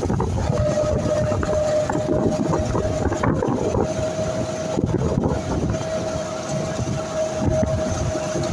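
Engine of a moving road vehicle running steadily, with a held tone through it, and wind rushing over the microphone.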